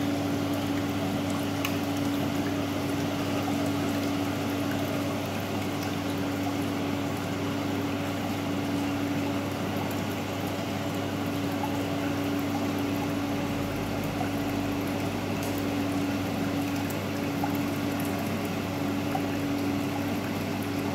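Reef aquarium equipment running: a steady hum from a water pump under a constant wash of moving water.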